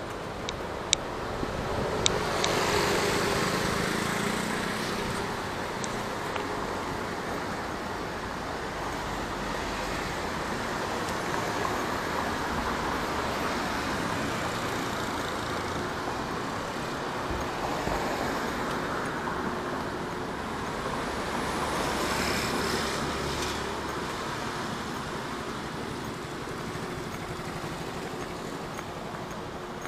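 Road traffic noise: a steady wash of car and motorbike engines and tyres, with vehicles passing and the sound swelling about three seconds in and again a little past twenty seconds.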